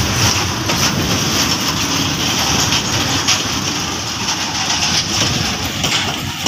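Container freight wagons rolling past on the rails: a steady rumble of wheels and steel with occasional knocks, the brake van at the tail of the train going by near the end.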